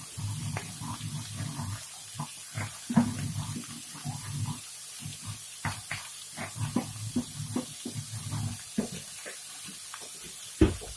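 Pork and red curry paste frying in a wok: scattered pops and crackles over a low rumble that comes and goes.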